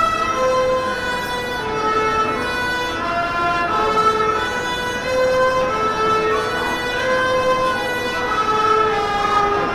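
A small ensemble of violins playing a slow Carnatic melody in unison, with held bowed notes that step and slide from pitch to pitch.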